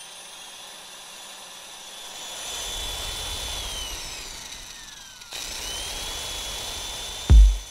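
Jet engine whine, several high tones together over a low rumble, gliding down partway through, cutting off abruptly about five seconds in and spooling straight up again. A heavy bass beat of electronic dance music kicks in near the end.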